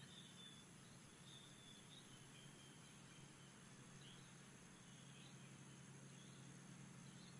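Near silence: faint outdoor ambience with soft, irregular high chirps over a low steady hum.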